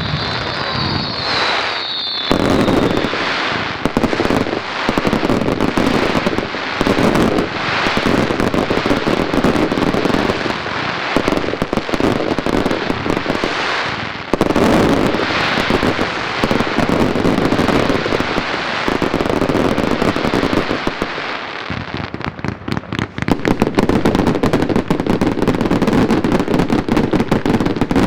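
Daylight fireworks going off in a continuous, rapid string of bangs and crackles, with a whistle fading out in the first two seconds. For the last quarter or so the bangs run together into a faster, denser crackle.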